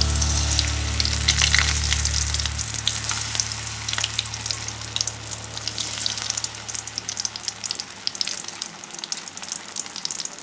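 Flour-battered eggplant slices frying in hot oil in a wok: a dense sizzle with fine crackling and spitting, loudest as the slices are laid in at the start and thinning out toward the end.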